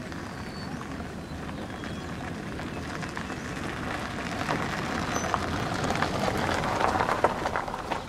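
Crackling, rustling hiss over a low rumble, growing louder in the second half, with a few faint high bird chirps early on.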